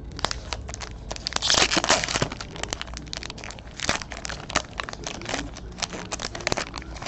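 Trading card pack wrappers crinkling as packs are torn open and cards are handled, with many small crackles and a louder rustle about one and a half seconds in.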